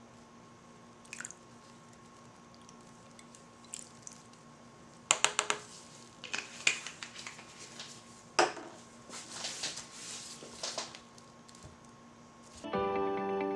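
A utensil clinking, tapping and scraping against small plastic cups while thick soap batter is stirred, with a cluster of sharp taps about five seconds in and more scraping after. Soft music with plucked notes comes in near the end.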